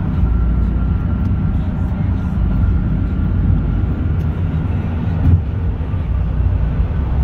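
Steady low rumble of tyre and wind noise inside a car's cabin at highway speed.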